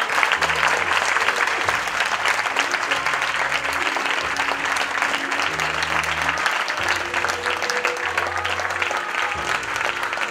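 Audience applauding, a dense clatter of many hands, over music with a low bass line.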